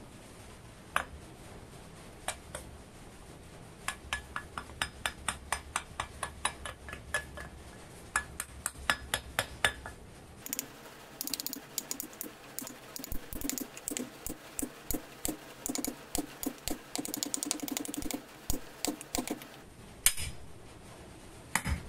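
Repeated hammer blows on a wooden block driving a new ball bearing down onto a lathe spindle: a few single taps, then a steady run of sharp taps, a short pause, and a faster, denser run with a metallic clink and ring, ending in one harder strike.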